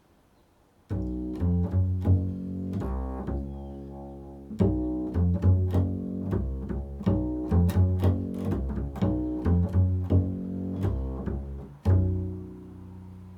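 Improvised music on a low-pitched string instrument, a run of sharply plucked deep notes that starts about a second in; the last note, near the end, rings out and fades.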